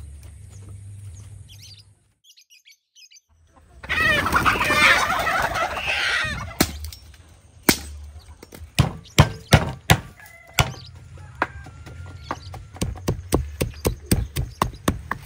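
Chickens squawking and clucking loudly for a couple of seconds. Then come sharp chops of a bolo knife splitting firewood. Near the end a wooden pestle pounds chilies in a wooden mortar, about three to four strikes a second.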